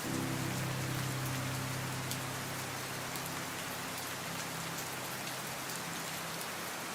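Steady rain falling on a surface, an even hiss with scattered drop ticks. A low held hum underneath fades away over the first few seconds.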